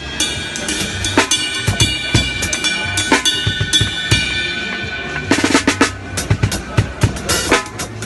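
Drum kit played in fast fills, with rapid snare, tom and kick strokes. A cymbal rings over the strokes from about a second in, and a run of very quick strokes starts about five seconds in.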